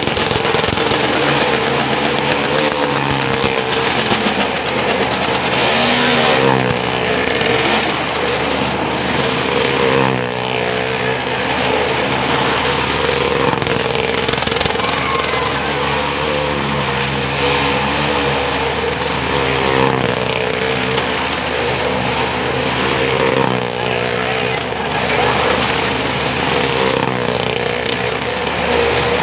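A motorcycle and a car running hard as they circle the vertical wall of a well-of-death pit. The engine notes rise and fall every few seconds as the vehicles sweep past, echoing inside the enclosed drum.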